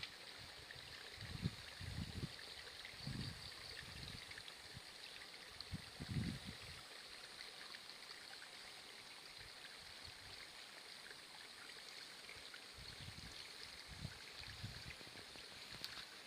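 Steady faint trickle of running water, with a few short dull low thumps: a couple in the first seconds, one about six seconds in, and several more near the end.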